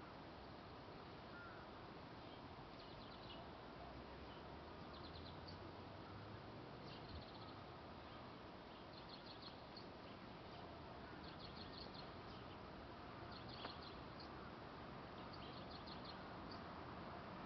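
Faint distant birds calling: short, quick trills of high notes every second or two over a steady hiss of background noise.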